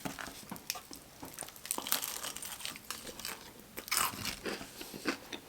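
Close-up mouth sounds of a person biting and chewing crispy fried Popeyes food: irregular crunching and crackling, with louder crunches about two and four seconds in.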